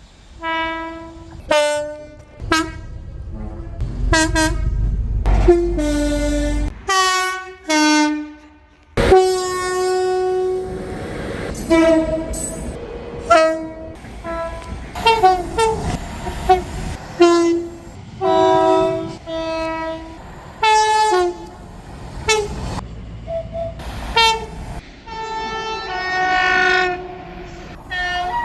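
Train horns sounding a long run of blasts, short toots and held notes, switching between a low and a high note in the two-tone pattern of British train horns. A low rail rumble runs under some of them.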